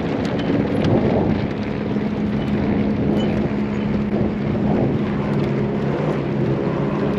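A vehicle engine running at a steady pitch for several seconds, with wind buffeting the microphone.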